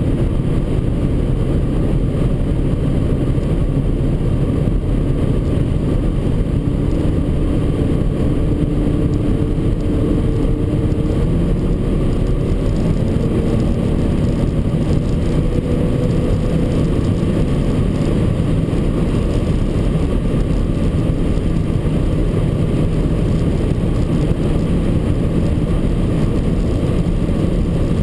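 Cabin noise inside an Audi TT RS Plus Roadster accelerating at high speed. The turbocharged 2.5-litre five-cylinder engine's note climbs slowly in pitch under loud, steady wind and road noise.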